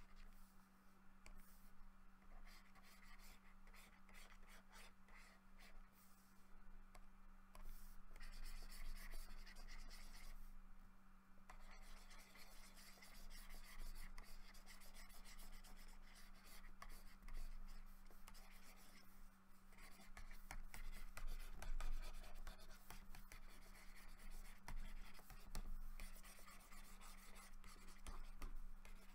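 Faint scratching of a pen stylus on a graphics tablet, in irregular runs of strokes with short pauses, as digital brush shading is laid down. A steady low hum runs underneath.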